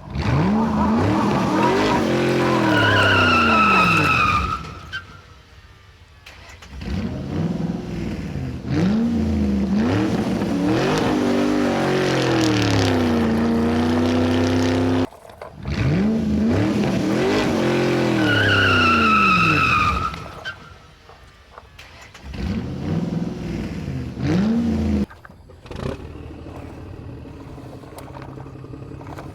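Car engine revving up and down with a short tire squeal, the same sequence played twice like a looped sound effect, then settling into a steady engine drone near the end.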